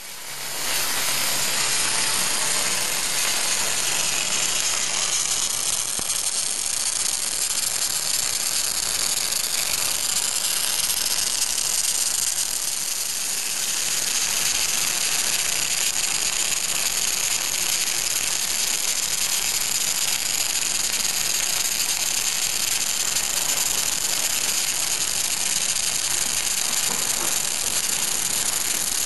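CO2/MAG gas-shielded arc welding: the arc gives a continuous crackling hiss, fading in over the first second and then holding steady.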